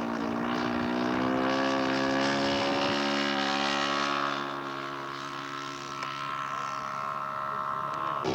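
Radio-controlled model airplane's engine and propeller running at a steady high throttle. The pitch rises slightly in the first second, and the sound is loudest in the first half before easing off a little.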